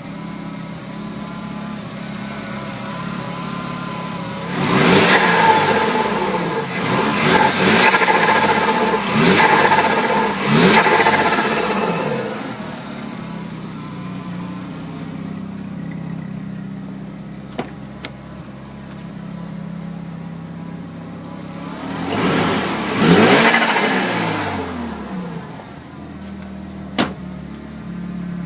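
Mazda RX-7 FD3S's 13B-REW twin-rotor engine on its stock sequential twin turbos idling, then revved in a quick series of four throttle blips, with one more rev later, each falling back to idle with turbo flutter as the throttle snaps shut. Two short sharp clicks are heard in the quieter stretches.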